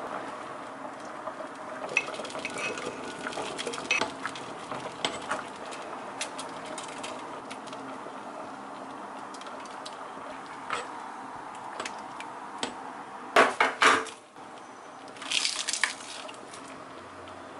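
Kitchen utensils and cookware clinking and knocking while baby food is prepared in a pot. Light clicks are scattered through the first half, then a quick run of loud knocks comes about two-thirds of the way through, followed by a brief scraping noise.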